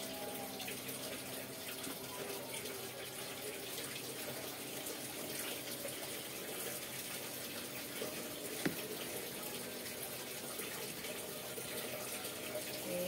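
Steady hiss from the stove as cooking oil heats in a wok, with one sharp click about two-thirds of the way through.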